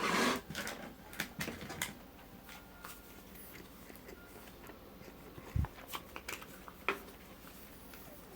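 Handling noises: a short rustling burst, then scattered light clicks and knocks, in two clusters.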